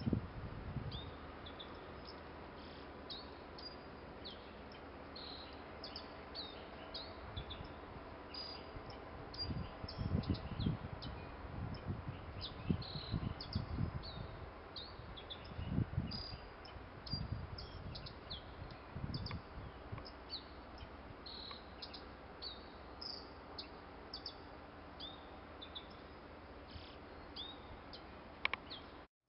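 Small wild birds chirping, many short high chirps in a steady stream, with low thuds on the microphone, mostly between about ten and twenty seconds in.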